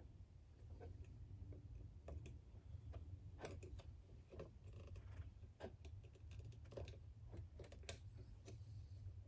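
Faint, irregular small metallic clicks and scrapes as a steel spiral lock is worked by hand into a piston's wrist-pin bore, over a steady low hum.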